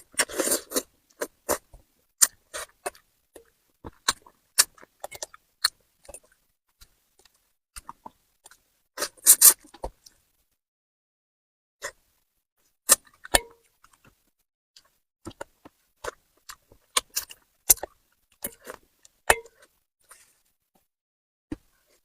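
Close-miked eating sounds from a person eating spicy braised fish: irregular wet smacks and sharp clicks, with short silent gaps between them and a denser cluster about nine seconds in.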